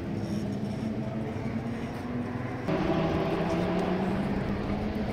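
Historic racing car engines running on the circuit, a steady engine note that steps up abruptly and louder a little past halfway.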